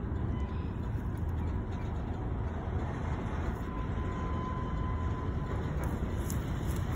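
Freight train cars rolling slowly toward the camera with a steady low rumble, and a faint thin squeal a few seconds in.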